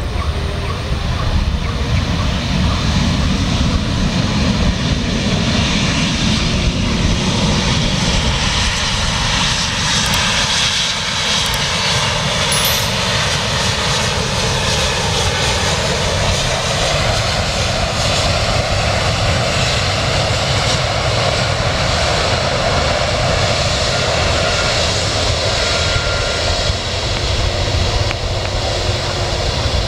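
Airliner engines running loud and steady as a plane moves on or over the runway, with a faint whine in the noise that dips and then rises again about halfway through.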